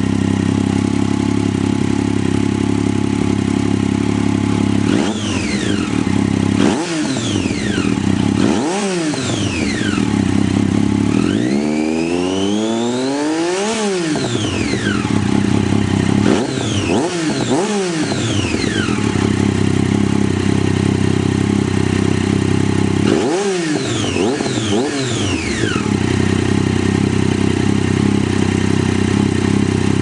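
Triumph Street Triple three-cylinder engine breathing through a Chain Reaction aftermarket exhaust. It idles steadily and is given a series of short throttle blips, each rising and falling back to idle. One longer, higher rev comes near the middle.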